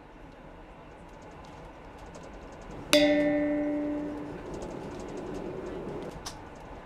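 A single bell-like chime struck about three seconds in, ringing with several clear tones that fade out over about a second and a half, over the low hum and faint ticking of a train standing at a station.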